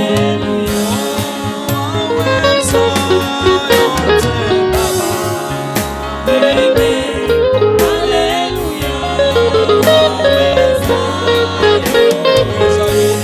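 Gospel praise and worship music: voices singing over a band with guitar and a steady drum beat.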